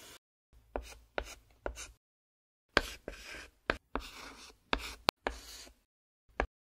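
Chalk scratching on a blackboard as words are written out in joined handwriting: short scratchy strokes, three in the first couple of seconds, then after a pause a quicker run of strokes and one last short stroke near the end.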